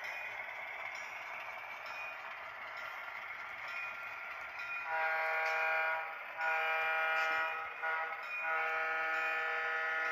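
Soundtraxx EMD-2 sound decoder in an HO scale EMD SW1 model locomotive, played through its tiny cube speaker: the diesel engine sound runs steadily. About five seconds in, three long blasts of a Wabco E2 air horn sound follow, the last still sounding at the end.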